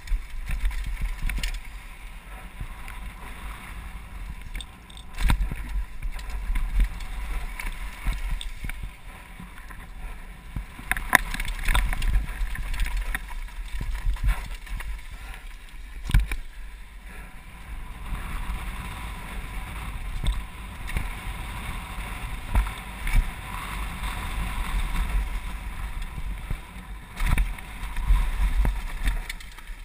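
Ride noise from a helmet-mounted camera on a downhill mountain bike running down a dry dirt trail. Wind buffets the microphone with a steady low rumble, tyre and trail noise hisses underneath, and the bike gives a few sharp knocks over bumps.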